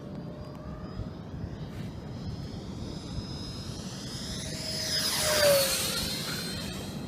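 Radio-controlled model Tornado jet making a fly-past: its motor whine builds, is loudest about five and a half seconds in, and drops in pitch as it goes by, then fades.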